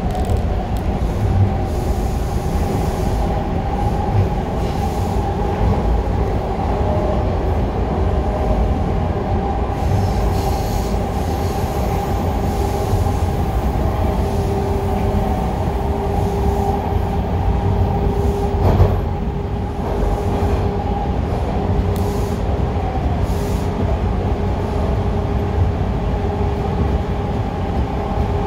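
Bombardier T1 subway car running between stations, heard from inside the car: a steady rumble with a held whine. The lower whine grows stronger from about halfway, and a single sharp clack comes about two-thirds through.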